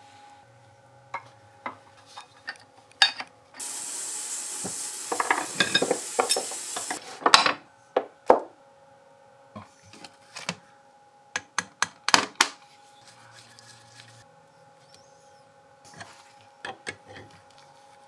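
Small metal parts of a milling machine head being handled during disassembly: scattered clinks, clicks and knocks. A few seconds in, a loud hiss lasts about three seconds with clicks over it, and a faint steady hum runs underneath.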